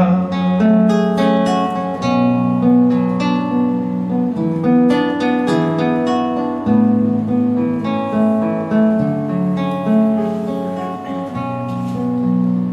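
Acoustic guitar played solo, fingerpicking chords over low bass notes in a steady flow of plucked notes.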